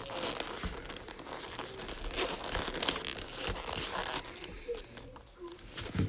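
Boxing gloves rubbing against each other and against a Rubik's cube as it is fumbled and turned: continuous rustling and scuffing with many small clicks.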